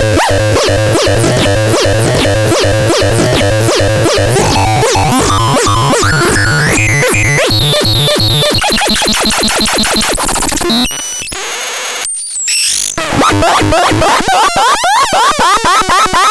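Electronic synthesizer making noisy, chaotic tones: rapid repeating pulses whose pitch climbs over the first half. It drops to a quieter stretch with a few steady tones about eleven seconds in, then warbles in fast pitch glides.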